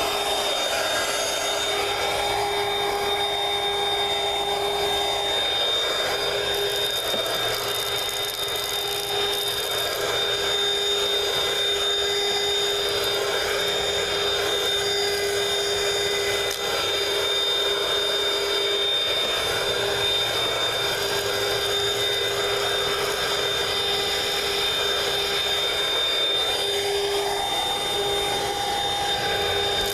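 Dirt Devil Quick Flip Pro cordless handheld vacuum running steadily: an even rush of air with a steady motor whine as it sucks up dirt from car seat upholstery and floor carpet.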